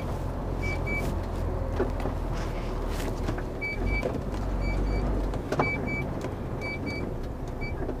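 HGV diesel engine running low inside the cab as the lorry creeps round, with the hazard warning lights' indicator sounding short double beeps about once a second.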